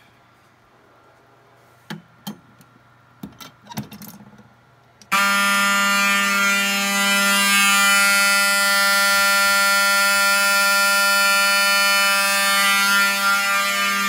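A few sharp clicks and knocks, then about five seconds in the horns of a home fire alarm system start suddenly and sound a loud, continuous, steady tone: the system in alarm after being set off from a pull station.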